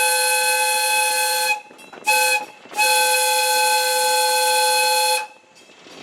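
Valley Railroad Mikado #40's chime steam whistle blowing several steady tones at once: the end of a long blast, a short blast, then a long blast that cuts off about five seconds in. The long–short–long ending is the close of the standard grade-crossing signal.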